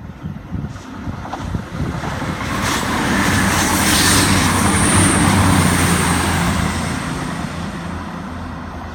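CrossCountry diesel passenger train passing through the station at speed without stopping: a low engine drone and a hiss of wheels on rails build to a peak about four to six seconds in, then fade as it goes away.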